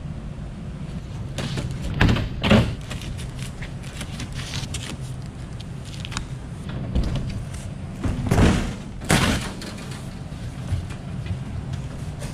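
Cardboard motorcycle crate being opened by hand: packing tape cut and pulled and cardboard panels handled and scraped, with short loud rasps about two seconds in and again around eight to nine seconds, over a steady low hum.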